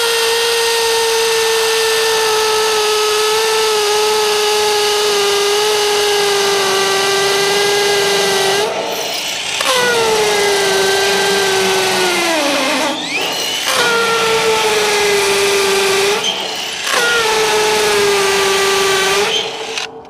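Cordless drill running hard under load in four long runs with short stops between them, its motor whine sagging in pitch as it works and bogging down sharply near the end of the second run. It is drilling or driving a hold-down fastener at the condenser's mounting foot into the concrete pad.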